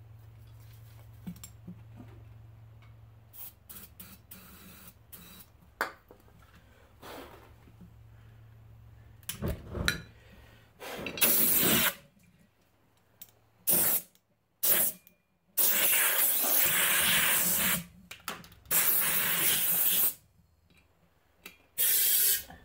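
A series of loud hisses of pressurised gas released at the lawn tractor tire, about six of them in the second half, each starting and stopping sharply, the longest about two seconds. Before them, a low hum with a few small clicks and knocks of handling.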